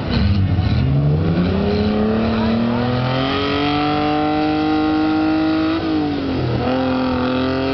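Off-road 4x4's engine revving up and held at high revs under load, dropping briefly about six seconds in and then climbing again.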